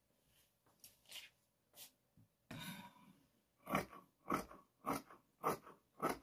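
Tailor's shears cutting through black abaya fabric on a table: a run of crisp snips, faint at first and louder in the second half at about one every half second. The cuts free the back panel of the abaya. A brief rustle of the cloth comes about two and a half seconds in.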